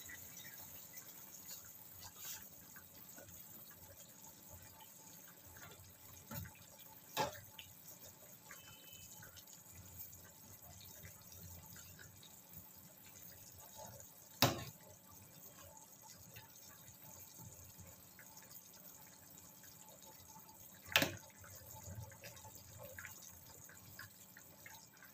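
Chicken and vegetable soup bubbling faintly in a saucepan, with a metal ladle knocking a few sharp times against the pot as it is stirred; the loudest knock comes about halfway through.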